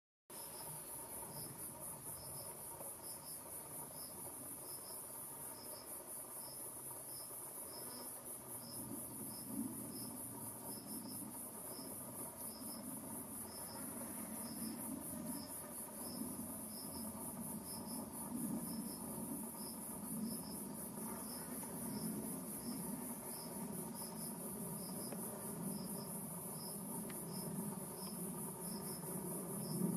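Insects singing: a continuous high, shrill trill, with a second insect's short chirp repeating regularly, often in pairs. From about a third of the way in, a low, wavering buzz joins it, the wingbeats of blowflies swarming over the dung.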